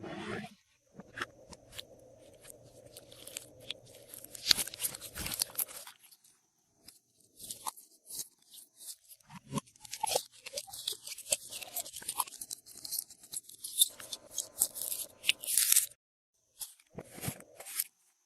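Hands mixing and squishing glossy slime with added bits, giving dense crisp crackles, clicks and pops that stop briefly twice.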